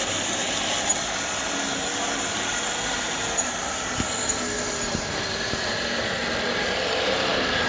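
Vintage O scale Icken & Barker Southern Pacific Mikado model locomotive running along its track: the motor and triple-reduction gearing whir steadily and smoothly, with a few light clicks from the wheels on the rails.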